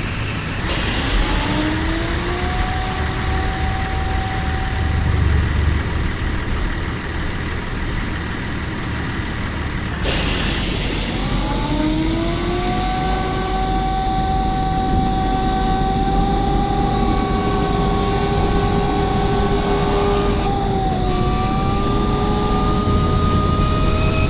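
Tornado warning siren winding up in a rising glide, then holding a steady multi-pitched wail over a constant rushing noise. After an abrupt break about ten seconds in, it winds up again and holds.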